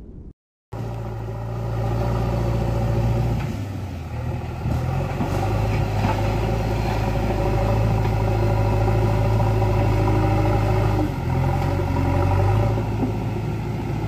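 JCB 3DX backhoe loader's diesel engine working under load as the front bucket pushes and carries soil. It cuts in after a brief silence, and its pitch dips and picks up twice as the load changes.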